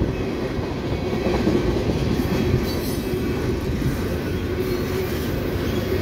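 Norfolk Southern mixed freight train rolling past at close range: a steady rumble of steel wheels on rail as tank cars and covered hoppers go by.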